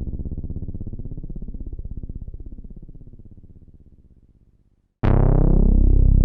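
Korg EX-800 synthesizer bass sound effect: a deep synth bass tone pulses and fades away over about five seconds. After a brief silence, a new loud bass note hits with a bright attack that quickly darkens.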